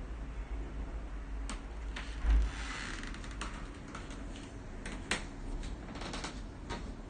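Hands at work on PC hardware: scattered sharp clicks and small knocks, irregularly spaced, over a steady low rumble, with one louder dull thud about two seconds in.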